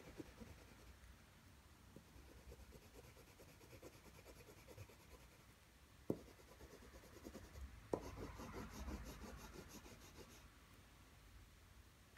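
Faint scratching and rubbing of a graphite stick on drawing paper as dark shading is worked in. There are two sharp ticks about two seconds apart, past the middle.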